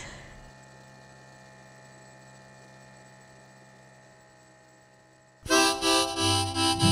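A faint steady hum, then about five seconds in a harmonica starts loudly, playing the opening of a folk song.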